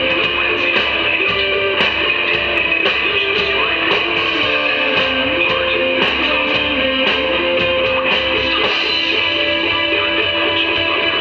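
Live instrumental rock band playing: electric guitar and bass guitar over drums, with sustained guitar notes and a moving melodic line and regular cymbal strikes.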